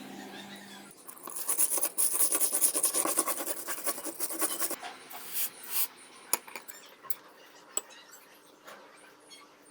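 Rusted metal screw being scraped by hand with rapid back-and-forth strokes for about four seconds, then lighter, scattered scrapes and clicks.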